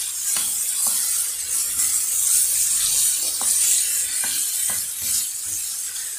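Sliced chicken frying in hot oil in a nonstick pan, a steady sizzle as it browns, stirred with a wooden spoon, with a few faint clicks.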